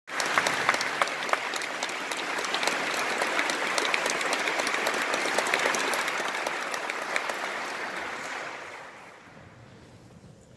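Audience applauding, the clapping dying away about nine seconds in.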